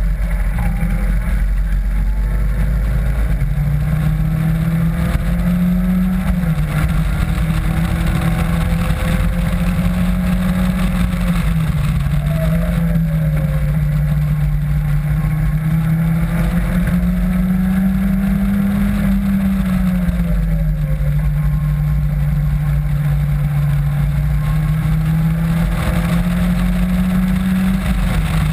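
Caterham Classic's engine pulling hard on track, heard from the open cockpit with wind and road noise. Its note climbs steadily, dips briefly several times, and climbs again as the car is driven round the lap.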